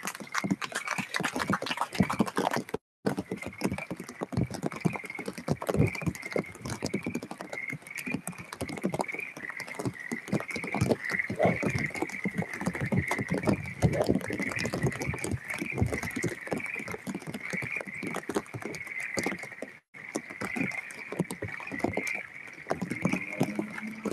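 Rain pattering close on the microphone, with a continuous chorus of frogs trilling high behind it. The sound drops out completely twice for a moment.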